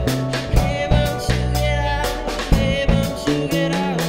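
Band music: drum kit strikes at a steady beat over a stepping bass line, with a wavering lead line above from about a second in.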